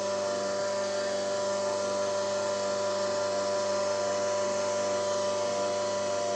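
Small electric oil-press machine running steadily, an even motor hum.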